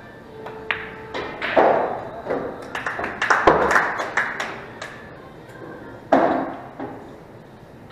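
Pool balls clicking and knocking on a pool table: a cue tip strike and ball-on-ball clicks, then a dense run of clacks and knocks. A last loud knock comes about six seconds in.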